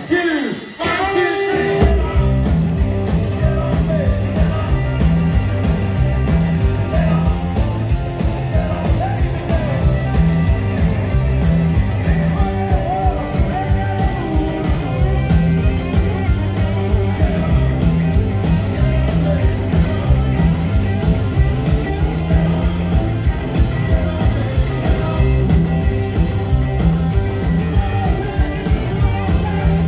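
Live rock and roll band playing: electric guitar over bass guitar and a drum kit, with a fast, steady beat. The full band kicks in about two seconds in.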